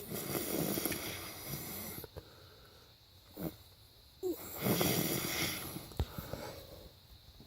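A man snoring in his sleep: two long snores, one at the start and one about four seconds later, with quiet breathing between.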